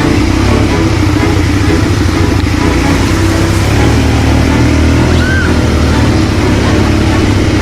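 ATV engine running steadily under way, loud and continuous.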